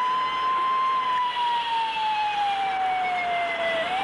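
Police siren wailing as a car pulls away: one slow wail that rises, sinks gradually over several seconds, and starts climbing again near the end.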